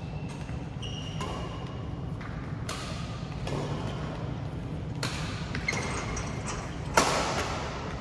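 Badminton racket strikes on a shuttlecock during a rally: a string of sharp hits about a second apart, echoing in the hall, the loudest about seven seconds in.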